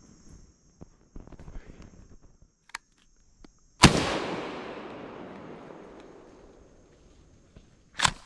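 A single shotgun shot about four seconds in, its report echoing and fading over about three seconds; the shot kills a squirrel. Before it a steady high buzz runs and stops just before the shot, and a short sharp sound comes near the end.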